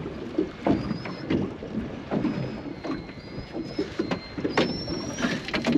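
Water sloshing and splashing against a small boat and knocks on the hull while a hooked pike is fought alongside, with a few short knocks close together near the end and some faint thin high whistling notes.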